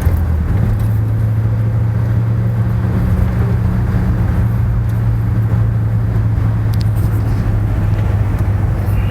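Car cabin noise on a highway: a steady low engine and road drone that steps up slightly in pitch about half a second in.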